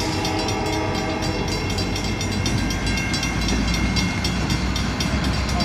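Union Pacific work train's freight cars rolling past at close range: steel wheels clicking over the rail in a quick even rhythm over a steady rumble that grows heavier about halfway through.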